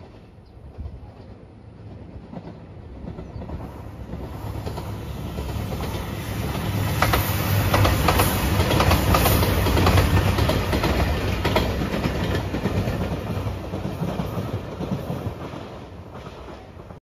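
JR Shikoku 2700 series diesel limited express train (the yellow Anpanman train) passing at speed: the engine and wheel rumble builds up, peaks in the middle with a run of wheel clicks over the rail joints, then fades as it goes away.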